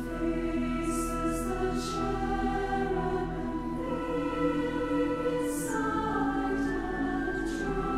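A large choir singing an American folk hymn in sustained chords that shift every second or two. The sharp 's' sounds of the sung words stand out a few times.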